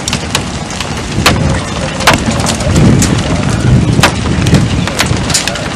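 Strong wind on the microphone, a rough low rumble that swells in the middle, broken by a dozen or so sharp irregular cracks, the loudest about two seconds in.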